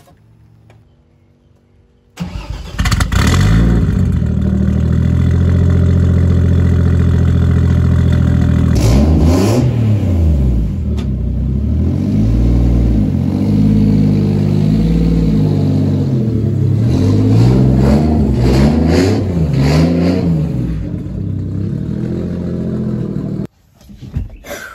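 Turbocharged Mercedes M104 straight-six in a W203 C-Class starting about two seconds in and settling into a steady idle. From about nine seconds in it is revved in a series of quick blips, rising and falling, and the sound stops suddenly near the end.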